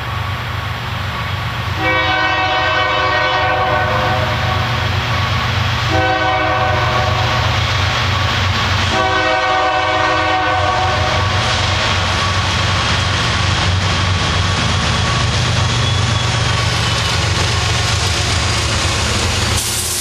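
Diesel freight locomotive's horn sounding three blasts as the train approaches: long, short, long. Underneath is a steady low rumble of the locomotives that grows loud about two seconds in, and the train is passing at close range near the end.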